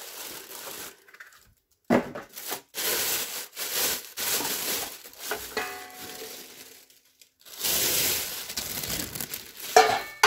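Thin plastic bag crinkling and rustling in irregular bursts as it is pulled off a large cooking pot, with a few sharp knocks near the end.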